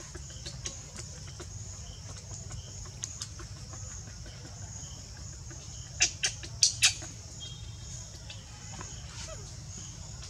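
Steady pulsing insect chorus, with four short, sharp, high sounds in quick succession about six seconds in.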